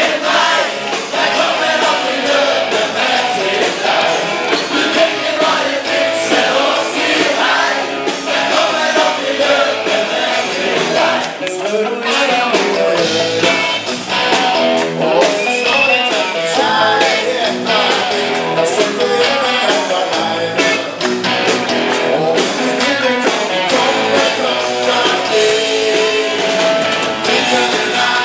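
Live band performing a song, heard from the audience: several male singers on microphones over electric guitar and a steady beat.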